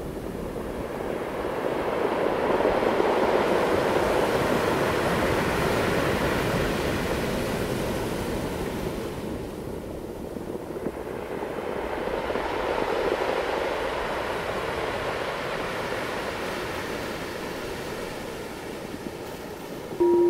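Ocean surf washing over a rocky shore, swelling and easing twice as waves come in. A loud steady tone begins right at the end.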